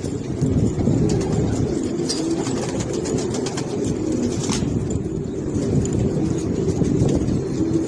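Domestic pigeons cooing continuously in low, warbling tones, with a few light clicks about halfway through.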